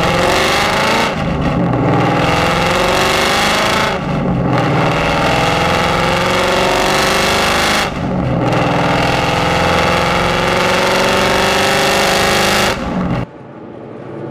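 A Ford Mustang GT's 5.0 V8, heard from inside the car through AWE Touring axle-back mufflers on a full exhaust with headers, under moderate acceleration. The engine note climbs steadily in four pulls, with three brief dips between them as it shifts up. Near the end the driver lifts off and it falls quiet to a cruise.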